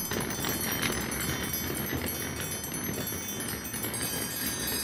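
Chiming with many high ringing tones held throughout, over a continuous low rumble.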